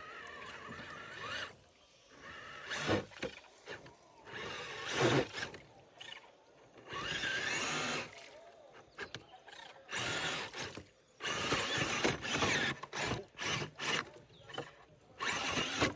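Small electric motor of an RC crawler truck whirring in repeated short bursts of throttle, some about a second long and many briefer ones near the end.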